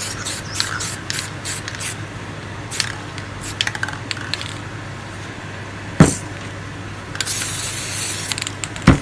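Aerosol spray paint can hissing in many short blasts over the first few seconds, then one longer blast about seven seconds in. Two sharp knocks, one about six seconds in and one just before the end, are the loudest moments.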